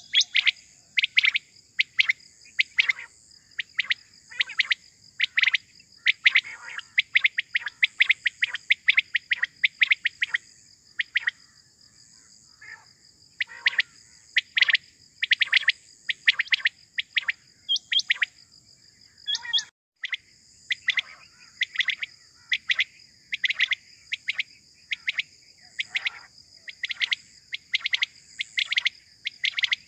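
Quails (batair) calling over and over in quick runs of short, sharp chirps, with a pause about a third of the way in. This is the calling used to lure wild quail for hunting. A steady high insect trill runs behind it.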